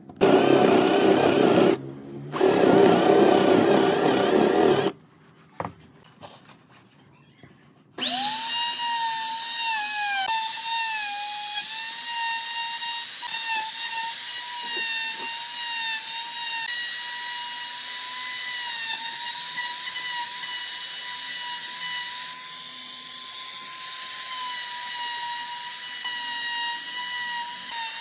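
Cordless drill boring a hole through a wooden gear blank in two loud bursts, then a few seconds of near quiet. About eight seconds in, a compact trim router spins up to a steady high whine and keeps running while it routes a circle into the wood.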